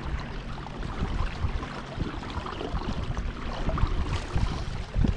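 Water lapping and splashing against a kayak's hull, with wind buffeting the microphone in low gusts. A louder low thump comes near the end.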